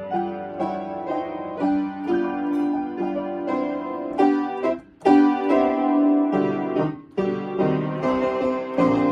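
Solo piano playing a melody over chords. Note onsets come steadily, and the playing breaks off briefly just before five seconds in and again around seven seconds.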